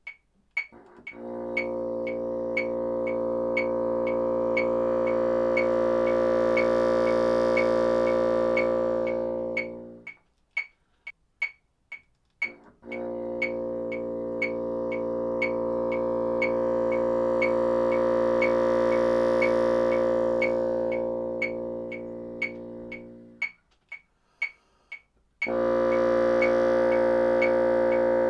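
Moosmann bassoon holding a low B flat three times as a long-tone exercise, each note swelling up and then fading away, with short breaks for breath between them. Steady metronome ticks sound throughout.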